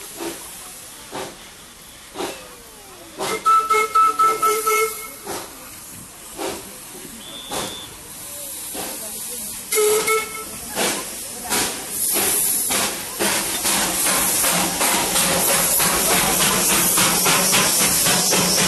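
Darjeeling Himalayan Railway steam locomotive chuffing slowly, about once a second, and sounding its steam whistle twice: a two-second blast about three seconds in and a shorter one about ten seconds in. From about twelve seconds on a loud, steady hiss of escaping steam takes over, with quick chuffs running through it.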